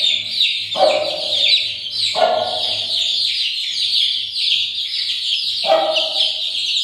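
Aseel chicks about 20 days old peeping continuously in quick high chirps. Three lower, louder calls stand out about one, two and six seconds in.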